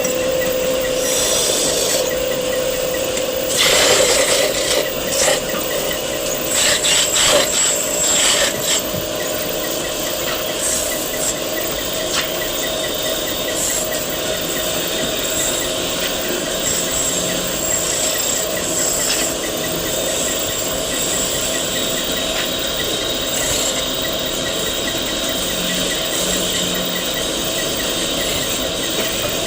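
A wood lathe running with a steady hum while a tool scrapes and rubs against the spinning wood, louder for a second or two about four seconds in and again around seven to eight seconds in.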